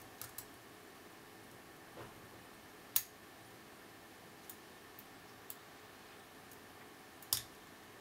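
Sparse small metallic clicks of a hook pick working the pin tumblers inside a brass Abus 65CS/50 padlock, with two sharper clicks about three seconds in and near the end, over a faint steady hiss.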